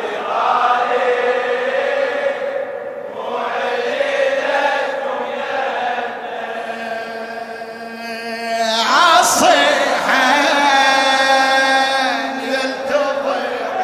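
Shia latmiya recitation: a male voice sings long, drawn-out melismatic notes without clear words over a steady hummed vocal drone. About nine seconds in the voice glides upward into a louder, higher held line.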